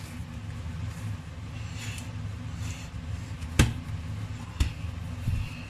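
Hands kneading soft momo dough on a board: quiet pressing and rustling with a couple of knocks, the loudest about three and a half seconds in and another a second later, over a steady low hum.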